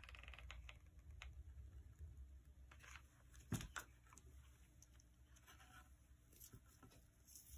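Near silence: low room hum with a few faint clicks and rustles from hands pressing braided synthetic hair down and handling a hot glue gun, the clearest click about three and a half seconds in.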